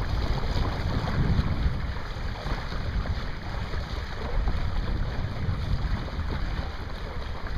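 Wind buffeting the microphone in an uneven low rumble, over the wash of water along the hull of a small sailing dinghy under way.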